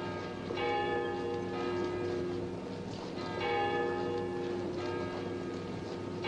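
Church bell tolling slowly, struck twice about three seconds apart, each stroke ringing on and fading.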